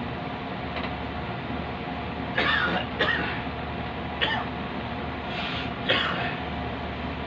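Glassworking bench torch flame hissing steadily as it plays over a blown glass bulb. Five short breathy bursts cut through it, the loudest about two and a half seconds and about six seconds in.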